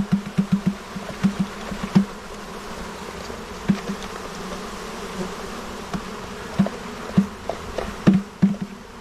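Honeybees buzzing in a steady drone around the hive, with single bees buzzing loudly as they fly close by: several in the first second, then a handful scattered through the rest.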